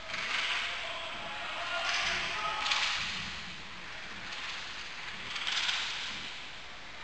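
Roller hockey play: a few hissing swishes that swell and fade, each about a second long, with faint shouts in the background.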